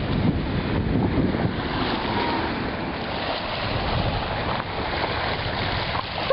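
Wind buffeting the microphone over small waves washing onto a pebble shore: a steady rush of noise.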